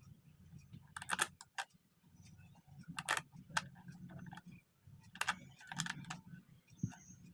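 Small 5 mm neodymium magnetic balls clicking and clattering against each other in several short clusters of sharp clicks, a second or two apart, over a low steady hum.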